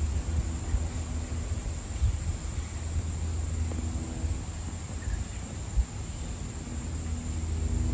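Wind gusting through the backyard trees and buffeting the microphone: an uneven low rumble that rises and falls, with one brief louder bump about two-thirds of the way through.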